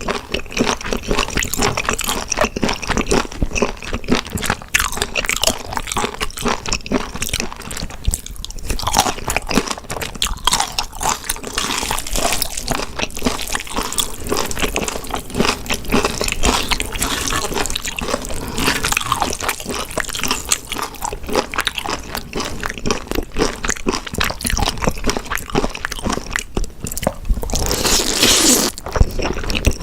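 Close-miked eating: wet chewing with crunching and squishing, dense and irregular, with a louder wet stretch near the end.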